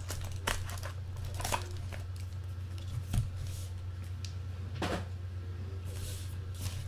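Trading-card box and pack being handled on a table: a few scattered rustles and light taps over a steady low hum.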